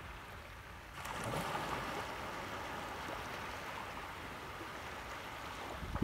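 Small waves washing gently in shallow water, a faint steady wash that grows a little louder about a second in.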